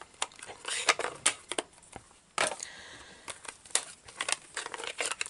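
Light clicks and taps of plastic stamp ink pad cases being handled and set down on a craft mat, with a brief scraping rustle about two and a half seconds in.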